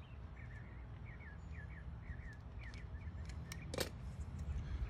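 Small birds chirping: a string of short falling chirps, two or three a second, over a low steady background rumble. A single sharp click almost four seconds in, as pliers squeeze a red tap-splice wire connector shut.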